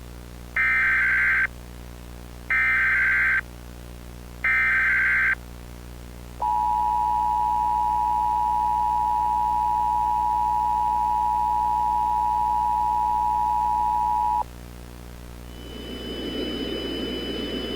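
Emergency Alert System broadcast tones: three short, warbling bursts of SAME digital header data, then the steady two-tone EAS attention signal held for about eight seconds before it cuts off. Near the end, a low droning background rises in.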